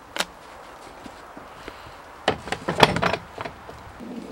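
Hand tools and metal parts clattering against a truck's sheet-metal door: one sharp click just after the start, then a cluster of knocks and clanks about two to three and a half seconds in.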